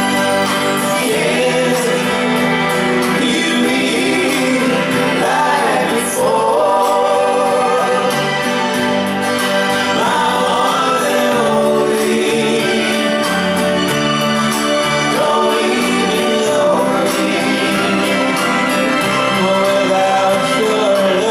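Live pop band music with singing.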